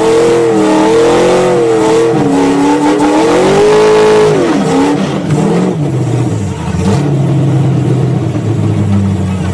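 Mud bogger's engine revving hard at high rpm, its pitch wavering up and down, then dropping off about four and a half seconds in to a lower, steadier run. Heard from inside the open, roll-caged cab.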